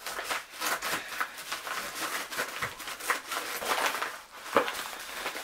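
Packaging being handled by hand, rustling and crinkling in a dense run of small crackles and scrapes, with a sharper click a little over four seconds in.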